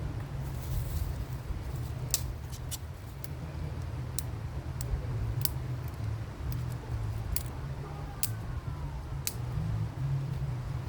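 Irregular sharp clicks and snaps of a knife working wood, over a steady low rumble.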